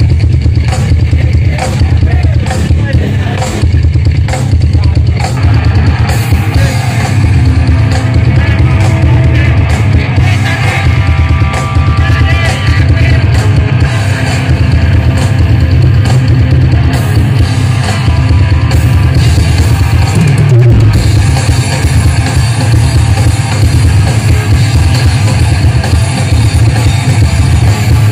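Loud live heavy rock band playing through a PA: distorted guitars, a pounding drum beat and heavy bass, recorded close on a phone with a dominant low end.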